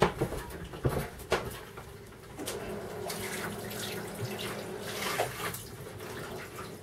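Kitchen tap running into a sink for about three seconds, after a few knocks and clicks in the first second and a half.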